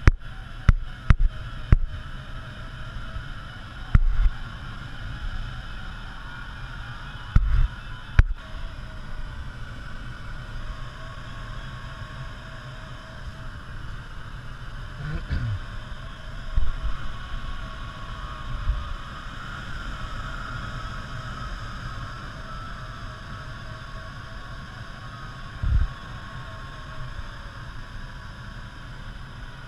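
Steady rushing airflow noise in the cockpit of an ASK 14 motor glider gliding with its engine stopped, with low buffeting rumbles. Sharp knocks come in a cluster at the start, a few more a few seconds later, and one low thump near the end.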